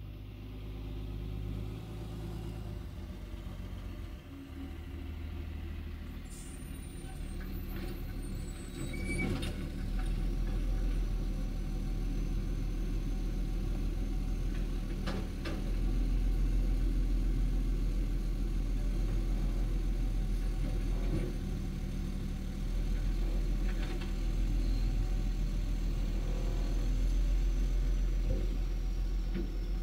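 Heil automated side-loader garbage truck's diesel engine running, louder from about a third of the way in as the truck draws up. A few sharp knocks sound as the lift arm grabs the wheeled cart and empties it into the hopper.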